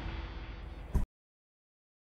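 The fading end of the documentary's soundtrack, with a steady low rumble under it. A short sharp hit comes about a second in, then the sound cuts out to complete silence.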